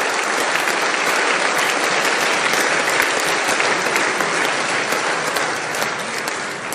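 Large audience applauding, a dense, steady clapping that begins to die down near the end.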